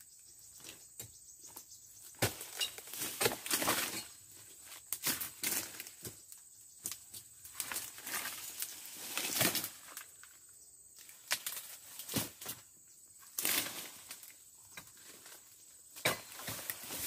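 Irregular chopping strikes, one every second or two, of a sharp dodos chisel blade on a long pole cutting into tough oil palm frond bases, with rustling of the palm fronds.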